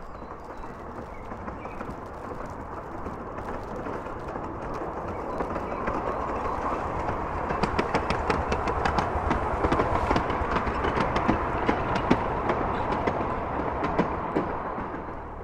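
Miniature steam locomotive Waverley, 10¼-inch gauge, approaching with a short train of wagons and passing close by. The sound grows steadily louder to a dense run of sharp clicks as it goes past, then eases off near the end.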